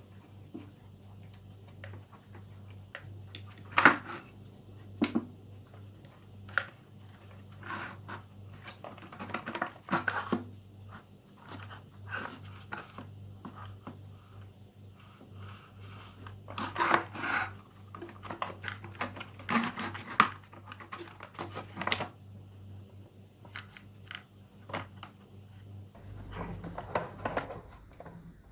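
Hands working on plastic vacuum-cleaner parts: scattered clicks and knocks, the loudest about four seconds in, with short bouts of scraping and rubbing, over a faint steady low hum.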